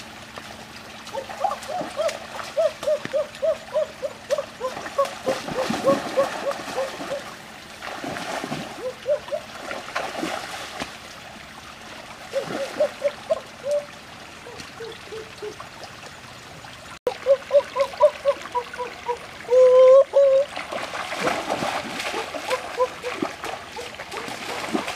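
Water splashing and sloshing as a man wades and works in a shallow muddy stream. Over it come several rapid runs of short, pitched calls, a few notes a second.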